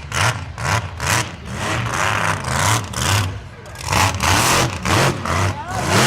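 Mud truck's engine revving hard and unevenly, with a rushing burst about twice a second as the revs surge.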